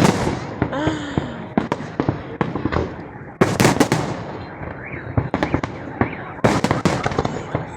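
Fireworks display: a steady run of sharp bangs and crackles, with dense clusters of reports about three and a half seconds in and again near the end.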